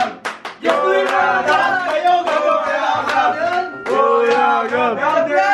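A group of young people shouting and chanting excitedly, several voices at once.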